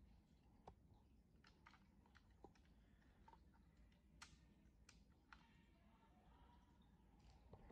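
Near silence with faint, irregular clicks and taps of hard plastic as the Ultraman Orb Ring DX toy is handled and its parts pressed.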